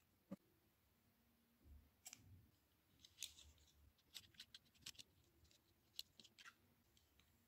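Faint handling sounds of yarn being wound around a cardboard disc loom with hairpin spokes: scattered light clicks and short rustles. They start with a single click and then come in a busier run in the middle.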